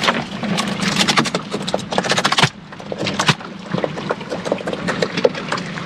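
A quick run of sharp knocks and clatter on a hard surface for about two and a half seconds, then a few scattered knocks, over a faint steady hum.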